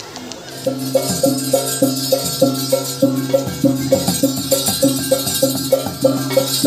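Balinese gamelan accompanying a Barong Bangkung: small gongs struck in a fast, even beat of about four strikes a second over a steady low gong hum, with cymbals jingling above. It starts about half a second in.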